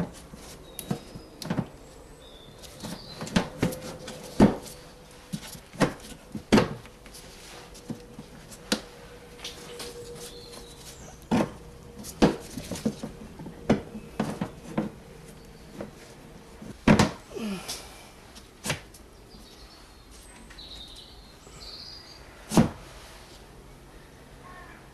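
Irregular clicks and knocks of plastic parts and wiring being handled and fitted as a BMW E90's windscreen washer fluid tank is refitted in the front wheel arch, with a few sharper knocks among them.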